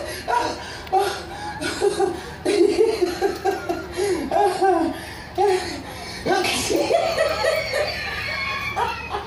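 People laughing heartily in repeated bursts at a comic street performance.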